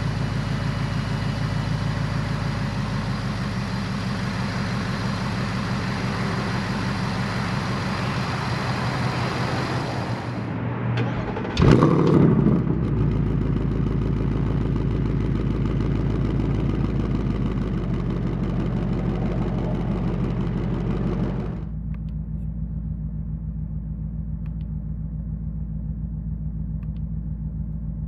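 A 2024 Ford Mustang Dark Horse's naturally aspirated 5.0L Coyote V8 idling steadily, heard first at the open engine bay and then at the exhaust tips, with a short loud flare about twelve seconds in. Near the end it is muffled, heard from inside the cabin.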